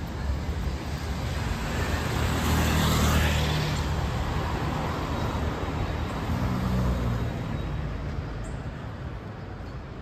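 Cars driving past on a city street: one swells up and fades about three seconds in, a second passes around six to seven seconds, over steady traffic noise.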